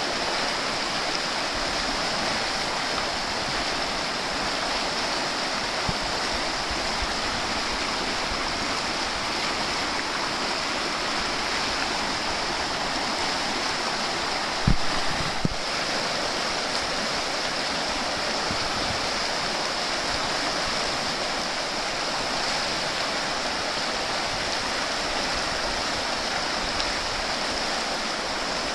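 Steady rushing of flowing river water, with a brief knock about fifteen seconds in.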